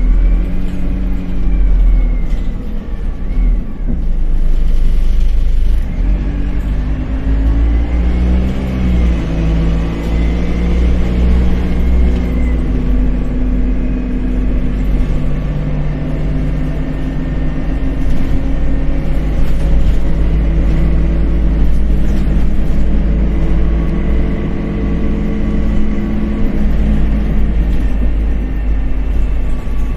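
Dennis Dart single-deck bus under way, its diesel engine running with a heavy low rumble and its pitch climbing and stepping through gear changes before settling. A high whine rises and falls with it at times.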